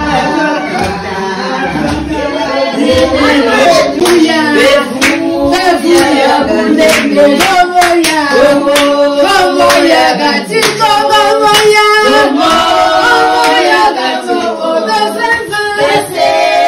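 A group of women singing a song together, with hand clapping, strongest through the middle.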